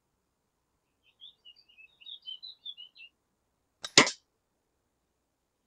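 A moderated air rifle fires a single shot about four seconds in: a faint click, then a short sharp report with a brief tail. Before it, a small bird twitters in a quick run of high chirps for about two seconds.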